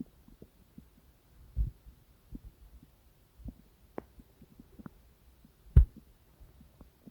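Human stomach and intestinal gurgling heard close to the belly: scattered low pops and soft thuds at irregular intervals over a faint low hum, with two louder thumps, about one and a half seconds in and near the end.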